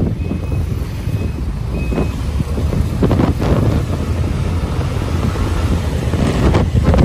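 Road noise from a moving ride in street traffic: a steady low engine and traffic rumble, with wind buffeting the microphone and a stronger gust of wind noise near the end. A faint high beep repeats four times, evenly spaced, in the first two seconds.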